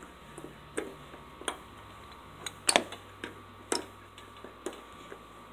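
Small metallic clicks and taps as hand tools work a circlip off the steel front axle of a riding mower. About two irregular ticks a second, the sharpest near the middle.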